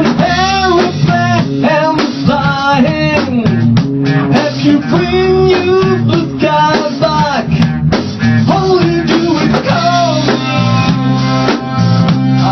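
A band playing a song with electric guitar and a drum kit, and a voice singing over them.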